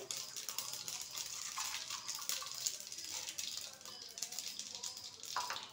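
Mustard seeds and chana dal sizzling in hot oil in a kadai: a steady hiss full of quick little crackling pops.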